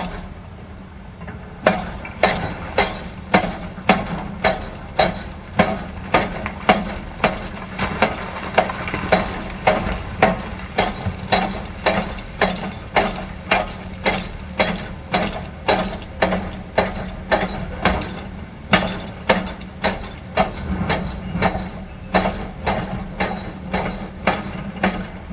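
Machine knocking in a steady rhythm, about two strikes a second, over a continuous motor hum; the knocks start after a short pause at the beginning.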